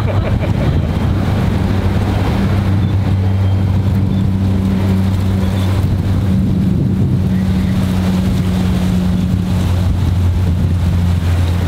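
Steady low engine hum and rumble, with wind buffeting the microphone.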